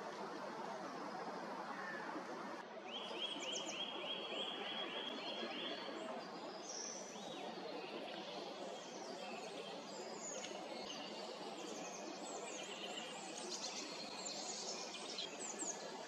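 Birds calling and chirping over a steady background hiss of outdoor noise. From about three seconds in comes a quick run of about nine evenly repeated notes, followed by many scattered high chirps.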